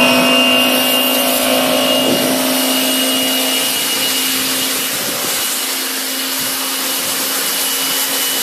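Small electric pressure washer running under load, its motor and three-piston pump giving a steady whine over a hiss of spray. The pump has just been serviced: refilled with oil and repacked with grease.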